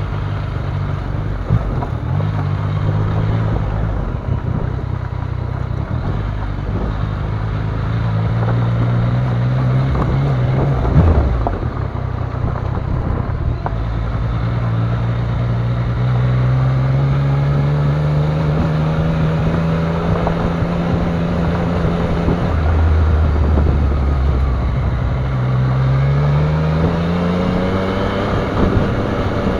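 Yamaha Niken GT's three-cylinder engine running under way, its pitch climbing and dropping several times as the throttle is opened and closed, with wind on the microphone. A brief knock about eleven seconds in.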